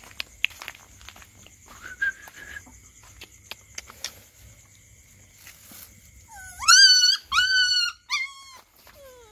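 A puppy crying: a faint whine about two seconds in, then three loud, high-pitched yelps in quick succession, each rising in pitch, and a short falling whimper near the end. Light clicks and scuffs of paws sound underneath.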